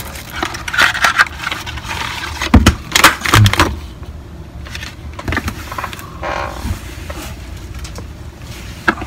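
A Joby tripod's paper-and-card packaging being torn open and handled: irregular rustling and tearing, loudest about three seconds in, then softer handling noise.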